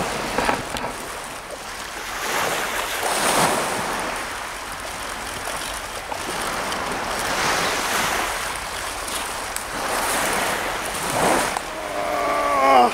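Baltic surf breaking on the beach, the wash swelling and ebbing every few seconds, with wind on the microphone. A voice calls out near the end.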